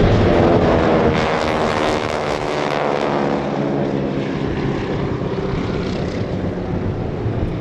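Piston-engined propeller aircraft flying past in a display, the engine and propeller note dropping in pitch as it passes.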